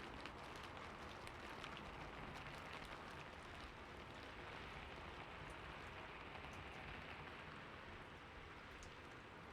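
Heavy rain falling steadily, with many small separate drop ticks on top of a constant hiss.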